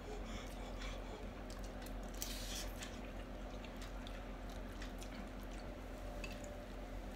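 Quiet slurping and chewing of noodles, with scattered small clicks, over a steady low hum.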